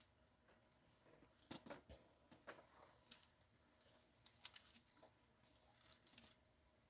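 Near silence: faint room tone with a scattering of soft, short clicks and scratches.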